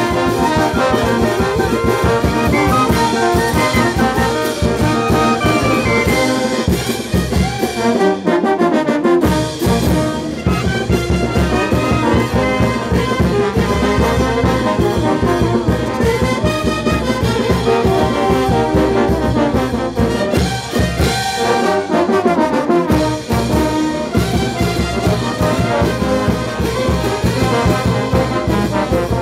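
Peruvian brass band of sousaphones, baritone horns, trumpets and clarinet playing a dance tune over a steady drum beat. The bass and drum drop out for about a second twice, about eight and twenty-one seconds in.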